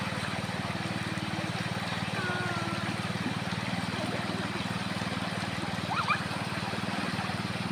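Shallow, fast river rushing over rocks: a steady wash of water noise with an even low rumble beneath it.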